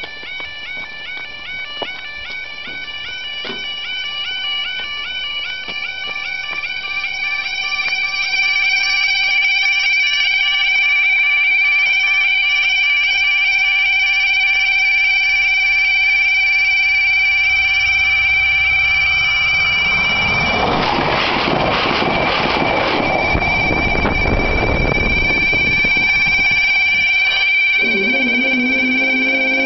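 UK level crossing yodel alarms sounding a warbling, repeating two-tone warning while the barriers are down. A train approaches with a low rumble and passes the crossing about two-thirds of the way in, its noise loudest there. Near the end a lower tone starts.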